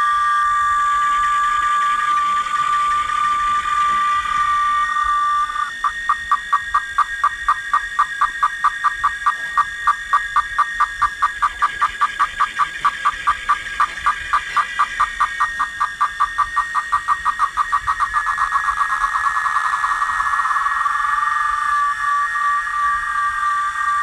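Cicadas singing: a steady high whine that breaks, about six seconds in, into a fast even pulsing of four or five beats a second, turns to a buzz near the end, and then settles back into the steady whine.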